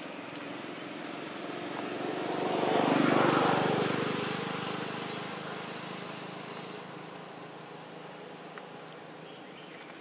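Engine noise of a passing motor vehicle or aircraft, rising to a peak about three seconds in and fading away over the next few seconds. Insects keep up a steady, faintly pulsing chirr in the background.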